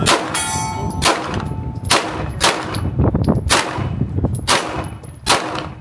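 A string of about eight gunshots fired at an irregular pace, roughly half a second to a second apart. Just after the first shot a steel target rings out with a metallic clang.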